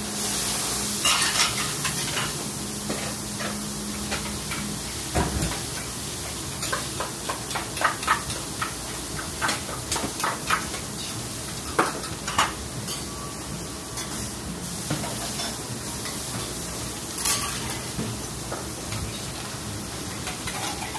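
Batter sizzling on a hot teppan griddle, with scattered sharp clicks and taps of a metal ladle and utensils as thin rounds of okonomiyaki batter are ladled out.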